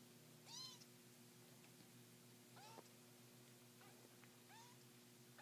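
Three-week-old kittens mewing faintly: several short, high squeaks that rise and fall, the loudest about half a second in. A steady low hum runs underneath.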